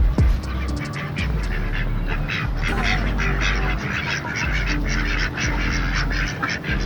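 A flock of domestic fowl calling and clucking all at once, many short overlapping calls.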